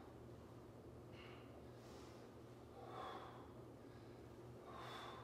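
Faint, heavy breathing of a man exerting himself through cross climbers (mountain-climber-style knee drives in a plank), about four breaths, over a low steady hum.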